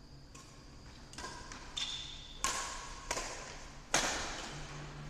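Badminton rackets striking the shuttlecock in a fast doubles rally: about six sharp hits roughly every two-thirds of a second, each with a short ring, the hardest one near the end.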